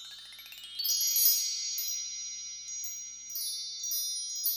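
Sparkly chime sound effect used as an outro: a quick rising run of bell-like notes over about the first second, then high shimmering tones that ring on with twinkles above them.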